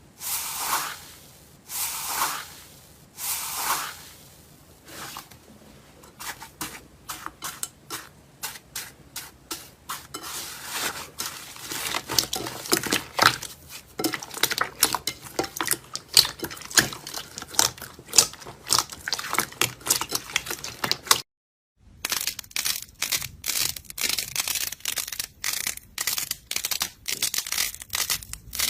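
Slime being worked by hand: three soft swishing swells at first, then dense crackling and popping clicks as it is squeezed and pressed, with a brief silent gap about two-thirds of the way through.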